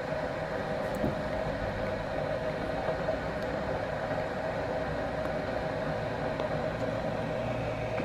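Steady mechanical hum with a constant mid-pitched tone and a low drone underneath, unchanging throughout; no gull calls stand out.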